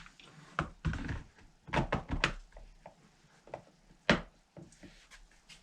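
Hard objects being handled on a workbench: a series of light knocks and clicks, the loudest about four seconds in.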